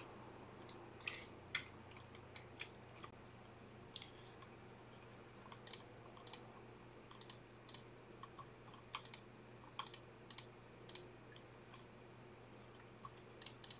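Faint, scattered clicks and taps of a computer keyboard and mouse, a dozen or more single clicks and a few quick pairs, over a faint steady hum.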